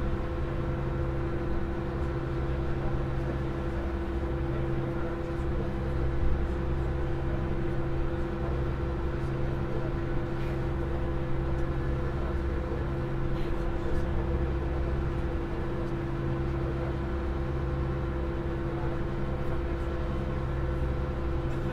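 Open car ferry's diesel engines running steadily at cruising speed: a continuous low rumble with a steady hum over it, the rumble swelling and easing every few seconds.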